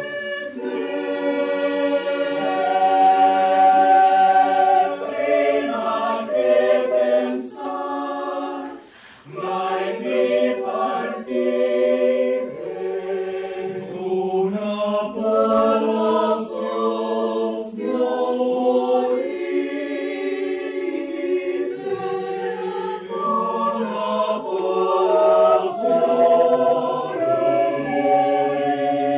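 Mixed choir of men and women singing a cappella, holding chords that shift in pitch, with a short break about nine seconds in.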